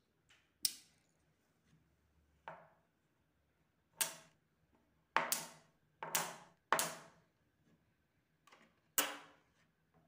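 Magnetic metal balls clicking as they snap together into a chain and tap down on a cardboard game board: about ten sharp, separate clicks at an uneven pace, several in quick succession in the middle.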